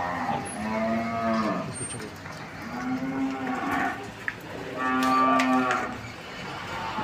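Zebu cattle mooing: three long calls about two seconds apart, the last the loudest.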